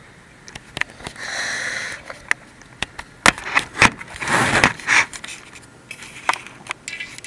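Handling noise from a handheld camera: scattered sharp clicks, and cotton hoodie fabric rubbing against the microphone in two rushes, one about a second in and a longer one around four seconds in.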